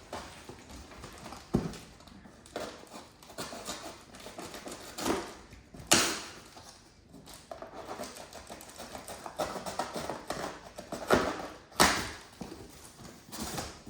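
A parcel and its plastic bags of sunflower seeds being handled and opened: scattered rustles and sharp knocks, the loudest about six seconds in and two more near the end.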